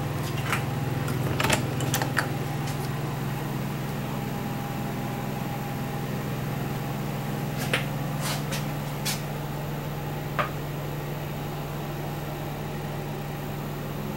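Steady low mechanical hum inside the motorhome, with a few sharp clicks and knocks as a door is handled in the first two seconds and again about eight to ten seconds in.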